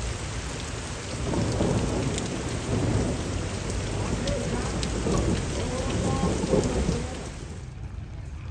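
Steady rain falling, with a low rumble of thunder that swells about a second in and dies away shortly before the end, when the rain's hiss also thins.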